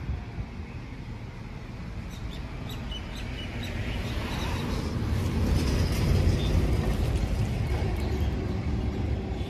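Low vehicle engine and road rumble that swells to its loudest a little past halfway and then eases off, like a heavy vehicle going by.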